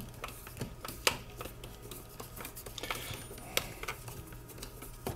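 Faint, irregular clicks and ticks of a hand screwdriver with a T20 tamper-resistant Torx bit turning a mounting screw into the steel trim of a lever lock. There are a couple of sharper metal clicks, about a second in and past the middle.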